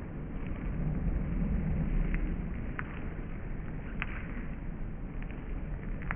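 Skateboard wheels rolling on a concrete driveway as a low, steady rumble, with a few sharp clacks of the board.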